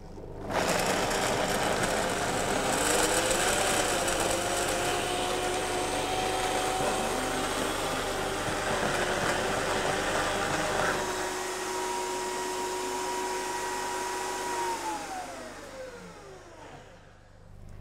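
Optimum 9900 high-speed blender running, blending soaked cashews, water, syrup and vanilla into a smooth cream. The motor starts about half a second in, its whine steps up in pitch about eleven seconds in, and near the end it winds down with a falling whine and stops.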